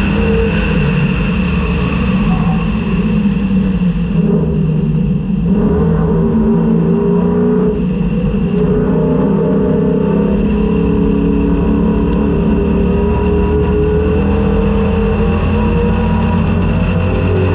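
A 1999–2004 Ford Mustang race car's engine heard from inside the car at racing speed, with a steady high whine over it. About four seconds in it eases off briefly, then pulls with its pitch slowly rising.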